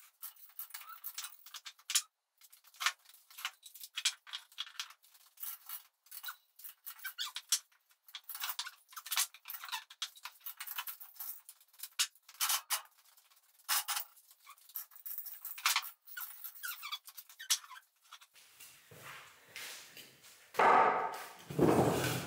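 Many short, irregular squeaks and creaks from a steel gantry crane and chain hoist carrying a hanging engine as the crane is shifted across the floor. Near the end come two louder, heavier scrapes.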